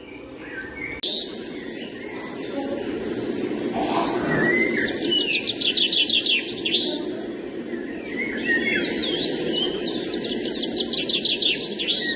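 Birds chirping, with rapid high trills repeating in runs, over a steady low background noise. It starts suddenly about a second in.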